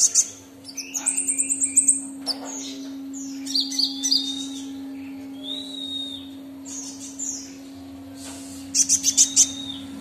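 Purple-throated sunbird (kolibri ninja) singing: high, thin chirps and short trills, with fast runs of notes about a second in and again near the end. A steady low hum runs underneath.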